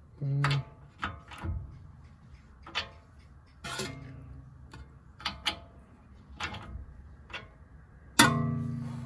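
Metal hand tools clinking: a socket on an extension and a ratchet knocked against the suspension and set down, with scattered sharp clicks and a few short metallic rings. A louder ringing clank about eight seconds in fades away slowly.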